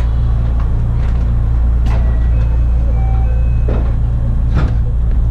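Steady low hum of a stopped electric commuter train, heard from inside the carriage, with a few short knocks about two, three and a half and four and a half seconds in.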